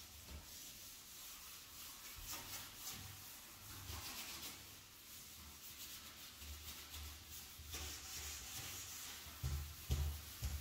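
Scrub sponge rubbing back and forth on a glass shower door: repeated scratchy swishing strokes. A few dull knocks near the end.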